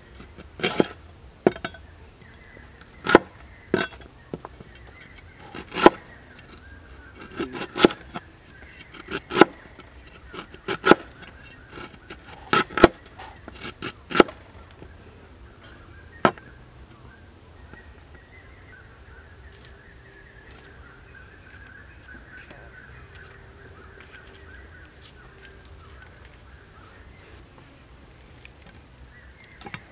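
Heavy cleaver chopping through a galangal root onto a wooden chopping board: about a dozen sharp chops at uneven intervals through the first half, then they stop.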